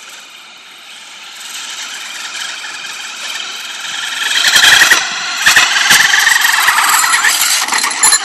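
Traxxas Slash 4x4 RC truck's electric motor whining and its tyres rolling on asphalt under the load of towing a person on a kick scooter, growing louder as it comes closer. A few sharp knocks come between about four and a half and six seconds in.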